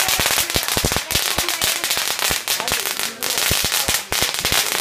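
A string of firecrackers going off at ground level in a rapid, unbroken run of sharp cracks, about eight to ten a second, over a steady crackling hiss.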